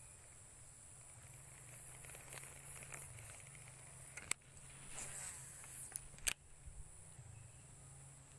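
A spinning rod and reel being handled at the water's edge: rustling, with two sharp clicks about four and six seconds in. A steady high insect buzz runs behind.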